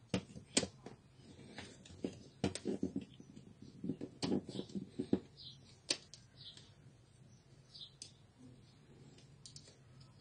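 Plastic clicks and knocks of an HP 17A toner cartridge being handled and its halves pressed together. There are two sharp clicks right at the start, a busy run of rattling and knocking from about two and a half to five seconds in, and a few single clicks after that.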